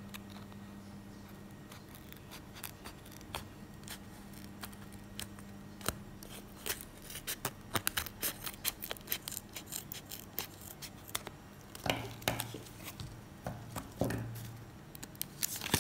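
Scissors snipping through the top of a foil-lined coffee bean bag: a run of short, sharp cuts, thickest in the middle, with a few handling noises after the cutting stops.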